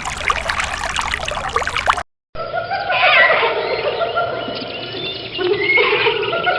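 A rushing, water-like noise for about two seconds, then a sudden cut to many birds calling at once, their chirps and squawks overlapping.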